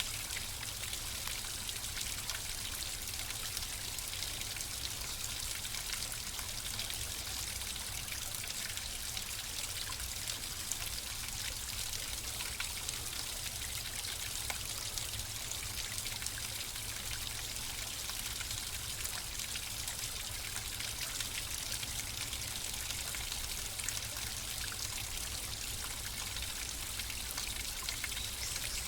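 Flowing water running steadily, a continuous splashing trickle with fine droplet ticks over a low rumble.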